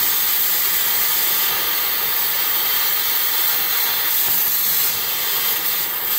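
Cutting torch hissing steadily as it cuts through corroded, seized exhaust manifold bolts, throwing sparks.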